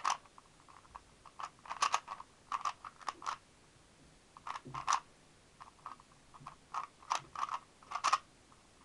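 Plastic Rubik's speed cube being turned rapidly in a solve: quick, irregular bursts of clicking and clacking as its layers snap round, with brief pauses between bursts.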